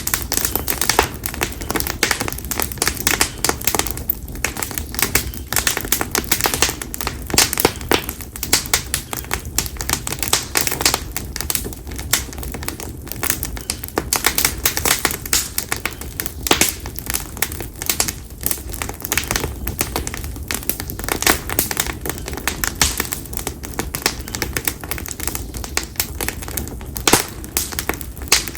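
Campfire of split konara oak logs crackling, with dense, irregular snaps and pops following one another without a break.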